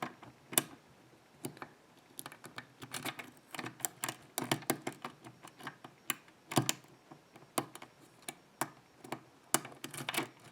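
Hook pick working the pin stack of a GeGe euro cylinder under tension: irregular light clicks and ticks as the pins are touched, with one louder click about six and a half seconds in.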